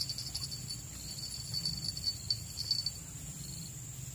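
Insects chirping: a steady high-pitched buzz, with a rapid pulsed chirping that fades out about three seconds in.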